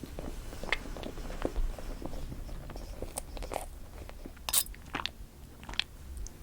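Close-up eating sounds of strawberry cream cake being bitten and chewed: soft wet mouth sounds with scattered sharp clicks and crackles, the sharpest about four and a half seconds in.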